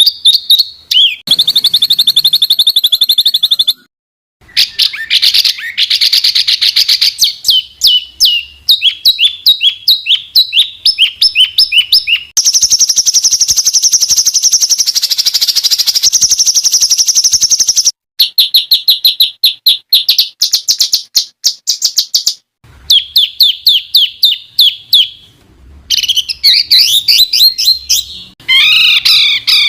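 Songbird masteran track: loud, spliced recordings of songbirds singing rapid strings of high chirps and trills, with a long high buzzing trill in the middle. Each segment cuts off abruptly into the next.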